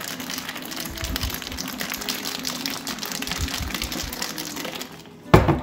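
Ice cubes and iced coffee rattling and sloshing inside a capped glass mason jar being shaken hard to chill the coffee. Near the end, a single sharp knock as the jar is set down on the counter.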